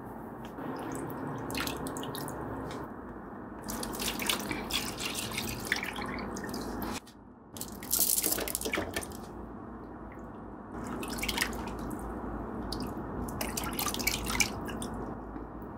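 Water dripping and trickling in uneven bursts, with a short break about seven seconds in.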